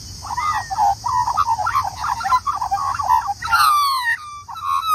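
Young Australian magpie warbling: a quick run of chattering, fluting notes, then about three and a half seconds in a louder call that glides down in pitch, followed by a few more notes.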